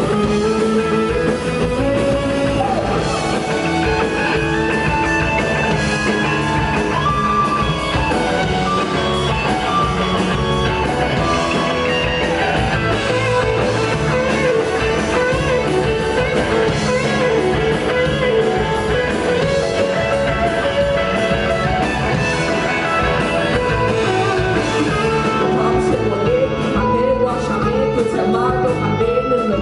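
A rock band playing live on electric guitars, bass guitar and drums, loud and continuous.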